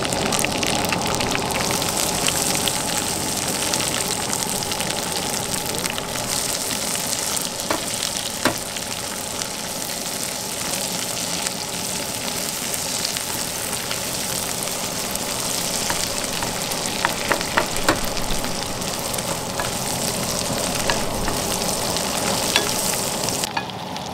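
Onions, tomatoes and garlic sizzling steadily in butter in a frying pan, stirred with a wooden spoon, with scattered small scrapes and clicks. Near the end the sizzle cuts off suddenly.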